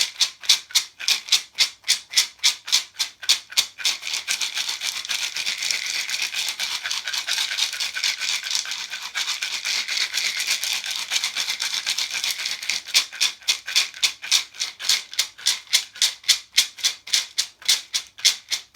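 Handmade calabash rattle being shaken: quick, even shakes at first, then a continuous swirling rattle for about eight seconds, then back to quick, even shakes near the end.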